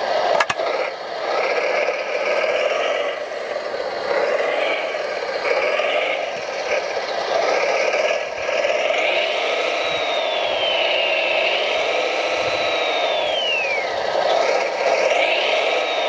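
Model Volvo L250G wheel loader's electric motors whining as it pushes its bucket into a rock pile through mud, the whine gliding down and back up in pitch several times as the motors change speed. A sharp click comes about half a second in.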